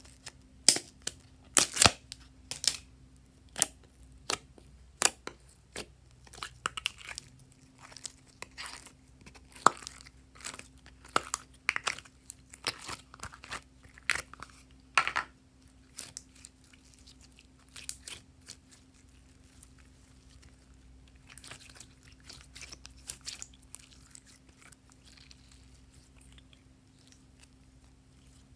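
Purple glossy glitter slime being tipped out of its thin plastic flower-shaped tub: a dense run of sharp clicks and crackles as the tub is pressed and the sticky slime peels away. It then thins out to a few softer crackles as the slime is handled, and it is quiet near the end.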